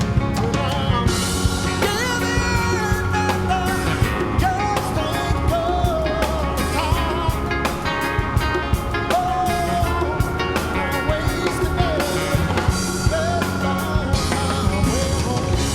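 Rock song with a sung melody over drums and guitar, with a steady beat.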